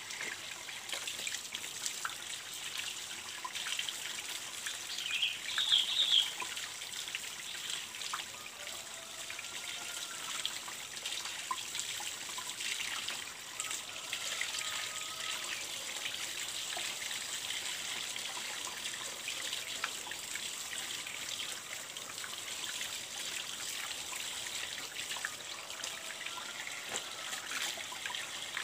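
Water running and trickling steadily from a PVC pipe spout onto the ground while cloth is rinsed in the flow, with a brief sharper sound about six seconds in.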